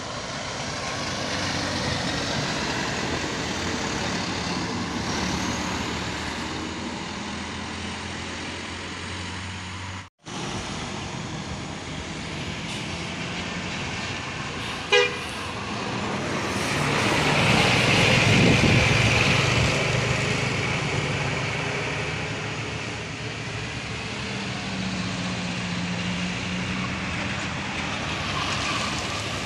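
Road vehicles passing on a winding road: a small box truck, then a large tour bus. A short horn toot comes about halfway through, and the bus's engine is loudest just after it as the bus goes by. The sound breaks off for a moment about ten seconds in.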